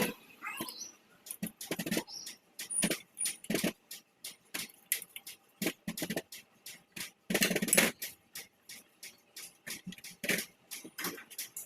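Irregular metallic clicks and clinks of tools and small parts being handled during a small-engine repair, with a louder clatter about seven and a half seconds in.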